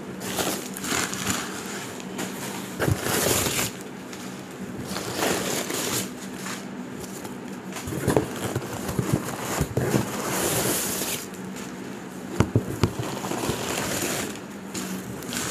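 Crumpled newspaper packing rustling and crackling as it is pulled by hand out of a cardboard box, in uneven handfuls, with a few sharp taps about three-quarters of the way through.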